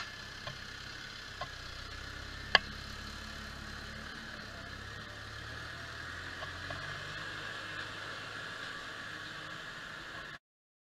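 Deutz-Fahr tractor's diesel engine idling steadily, with a few light clicks and one sharp knock about two and a half seconds in. The sound cuts off abruptly just before the end.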